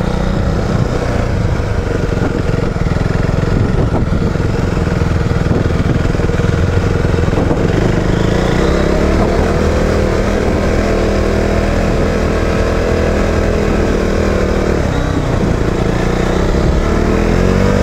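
KTM Duke 390's single-cylinder engine running under way, revs rising and falling with the throttle and climbing again near the end.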